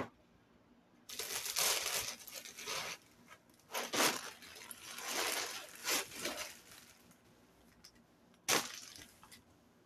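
Rough rustling and scraping noise in several bursts, with a sharp one near the end, from something rubbing close against the phone's microphone.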